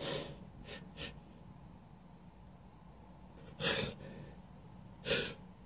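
A person's faint sniffs and sharp breaths while building up to a sneeze, with two louder, longer breaths about three and a half and five seconds in.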